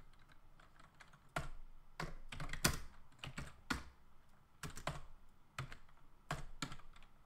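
Computer keyboard typing: a string of irregular keystrokes, starting about a second and a half in, coming in small clusters with short pauses between them.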